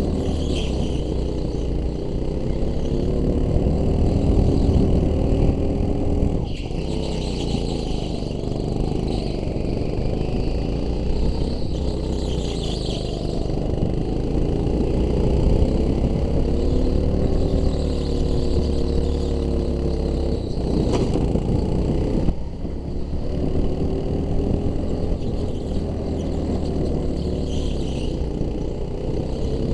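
Go-kart engine heard from on board at race pace, its pitch climbing and falling again and again as the kart speeds up and slows, with a couple of brief drops in revs.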